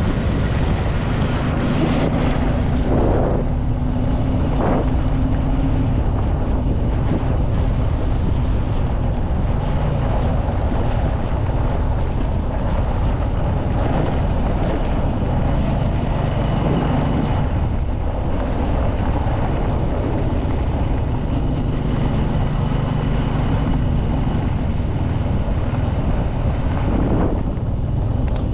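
A moving vehicle's steady engine and road noise, with wind buffeting the microphone.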